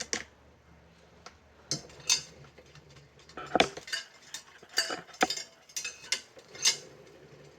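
Loose steel bicycle spokes and nipples clinking and ticking against each other and the rim as the wheel is taken apart by hand, a string of irregular metallic clicks with short ringing.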